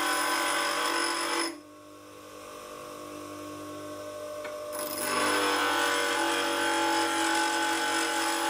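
Bench grinder wheel grinding a flat into a hardened steel lathe dead center held freehand against it. The steel is lifted off the wheel about a second and a half in, leaving only the grinder's steady motor hum, and pressed back on for a second pass about five seconds in.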